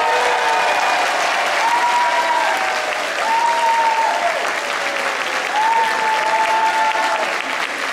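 Audience applauding, with several drawn-out high-pitched calls over the clapping.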